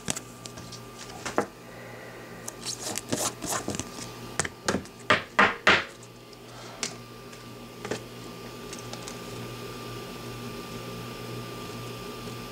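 Trading cards being handled and tapped on a tabletop: a run of sharp clicks and light rustles over the first six seconds, the loudest taps about five seconds in. After that only a steady faint hum with a thin high tone remains.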